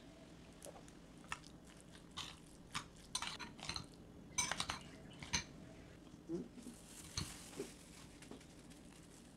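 Metal utensil clinking and scraping against a glass mixing bowl while stirring thick egg salad: a quick run of sharp clinks, loudest about four to five seconds in, then a few softer knocks and light handling noise.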